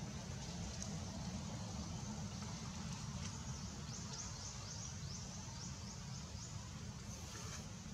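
Outdoor forest ambience: a steady high insect buzz with a run of short repeated chirps in the middle, over a low steady rumble.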